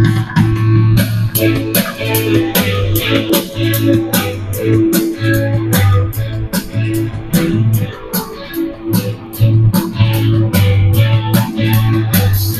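Instrumental music with guitar, bass and a steady beat, played through a Tribit XSound Go portable Bluetooth speaker as a demonstration of its sound.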